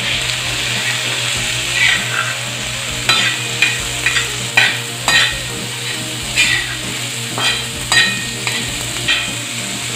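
Metal spatula scraping and tapping across a flat metal tawa, stirring chopped onion, green beans and peas frying in butter, over a steady sizzle. The strokes come irregularly, about one every half second to second.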